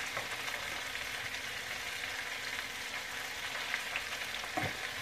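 Chopped cabbage, onions and bacon fat sizzling steadily in a frying pan on the stove, with a faint knock near the end.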